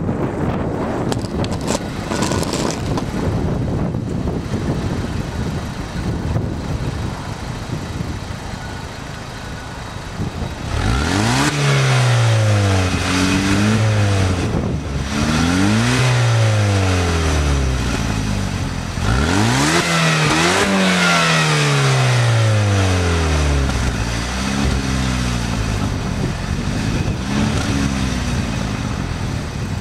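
Stock exhaust of a Pontiac Solstice GXP's turbocharged 2.0-litre four-cylinder engine, revved in about six blips. Each rev rises quickly and falls slowly back down; the longest and loudest comes about two-thirds of the way through.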